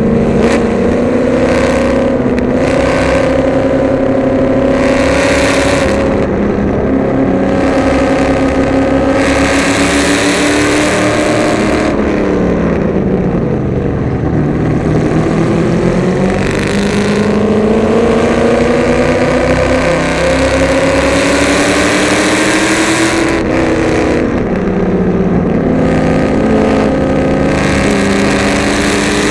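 Holley-carbureted 351 Windsor small-block Ford V8 in a BMW race car, heard from the cockpit at racing speed. The engine's pitch climbs and drops with the gears and the corners, falling steadily for a couple of seconds around halfway as the car slows, then climbing back up before another quick drop later on.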